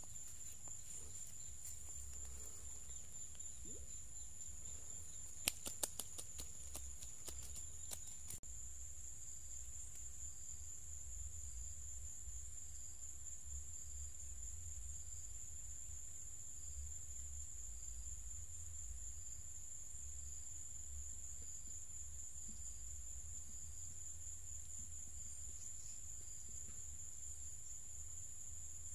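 Insects droning in a steady high-pitched chorus, with a faint short chirp repeating about once a second. A few sharp clicks come about five to eight seconds in.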